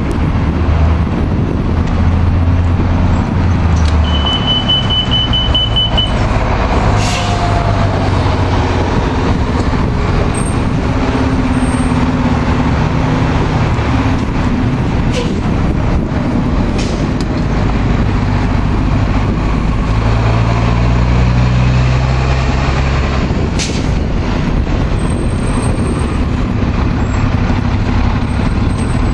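City bus engines running at a transit centre, with a steady low drone whose pitch shifts as buses idle and move. A rapid beeping tone sounds for about two seconds, about four seconds in, and a few brief sharp noises are scattered through.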